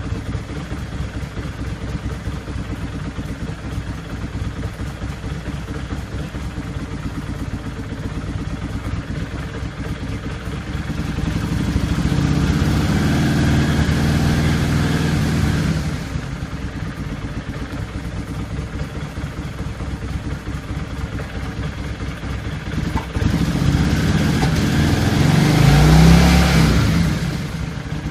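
Kawasaki Vulcan 800 V-twin engine idling, then revved and held up twice: once about halfway through and again near the end, where it is loudest.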